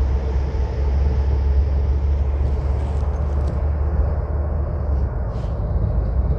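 Steady low rumble of engine and road noise inside a moving Greyhound coach bus cruising at speed.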